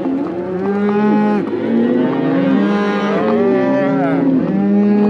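A herd of cattle mooing, many long calls overlapping one another without a break.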